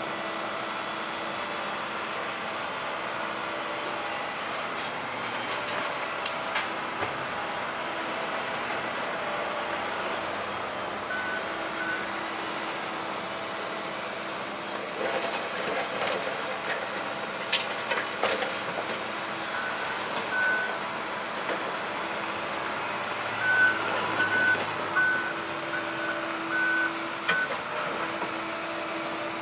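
Construction machinery engine running steadily while a reversing alarm beeps in short runs: twice about 11 seconds in, twice near 20 seconds, then a longer run of evenly spaced beeps near the end. A few sharp metal clanks are heard along the way.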